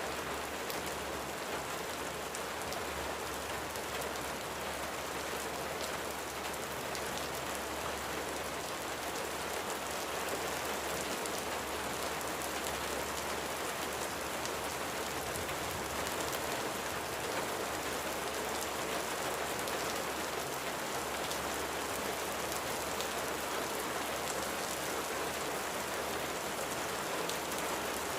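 Steady rain falling: an even hiss with many small drop ticks throughout.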